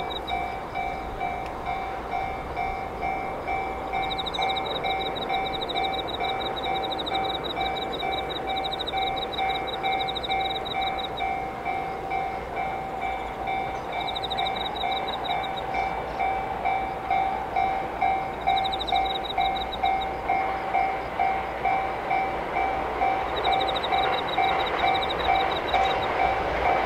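Railway level-crossing warning bell ringing steadily in two tones, about twice a second. The rising noise of an approaching 681/683-series electric express train grows louder near the end.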